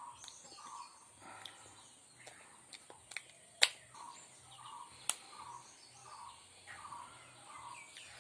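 A bird calling over and over, one short call about every second. A few sharp clicks or taps come through it, the loudest a little before the middle.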